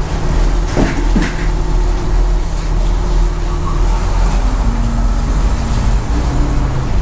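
Fishing boat's engine running with a steady low rumble. About a second in there are two sharp clanks as a wire cuttlefish cage is handled and stacked on deck.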